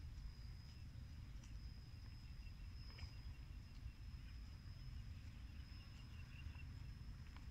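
Faint rural field ambience. A steady high insect whine runs throughout, with a faint, rapid chirping from about two and a half to six and a half seconds in, over a low rumble.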